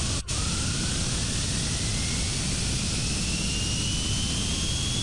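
Small turbine spooling up: a rushing jet-like noise with a thin whine that rises steadily in pitch, after a momentary break near the start.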